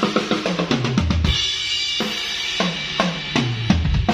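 Acoustic drum kit played in a soundcheck: a quick run of tom and snare hits over kick drum, with a cymbal crash about a second and a half in, then more tom hits.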